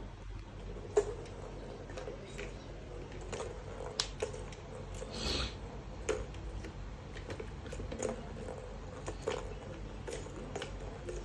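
Scattered light clicks and taps of a kitten at play: claws on a tile floor and paws batting the plastic tracks of a tiered ball-track cat toy.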